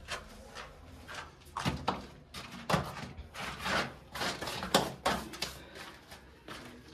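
Irregular knocks and scuffs of someone clambering up a narrow stone passage: footsteps and scrambling on stone.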